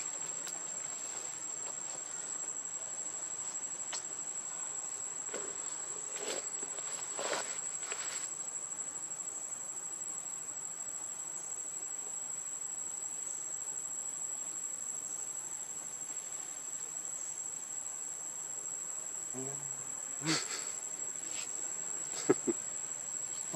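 Steady, high-pitched drone of insects in the surrounding forest, one unbroken tone. Several brief sharp clicks sound near the end.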